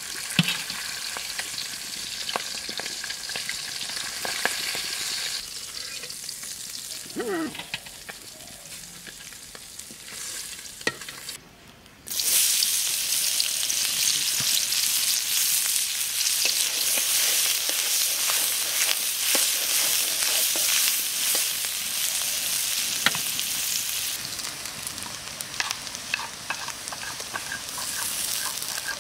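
Hot oil sizzling in a kadai as food fries, with scattered clicks and scrapes of a spatula stirring. About twelve seconds in the sizzle drops out briefly and returns louder as sliced onions fry in the oil.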